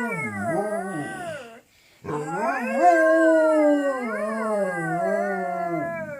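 A dog howling along with a girl who imitates its howl: long, wavering howls that slide up and down in pitch, a short break about a second and a half in, then a second howl lasting about four seconds.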